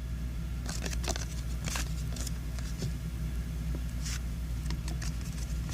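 Trading cards being handled and flipped through, giving a scattering of short slides and flicks of card stock, over a steady low hum.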